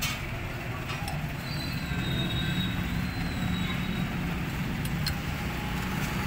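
Steady low background rumble with a few faint clicks, under the soft rubbing of a cloth wiping out the inside of a scooter's plastic air filter box.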